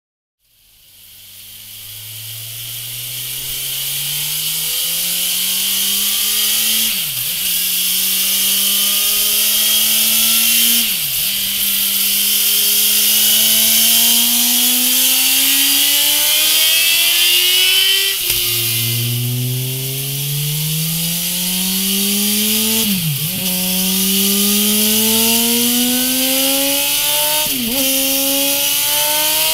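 2017 Suzuki GSX-R1000's inline-four engine accelerating under load on a dyno, its pitch climbing in each gear and dipping at each upshift, twice per run. A new run starts about halfway through, this time through a MIVV Suono slip-on exhaust. A steady high hiss runs underneath throughout.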